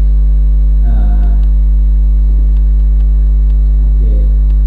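Loud, steady electrical mains hum at about 50 Hz with a stack of evenly spaced overtones, buzzing through the sound feed without a break.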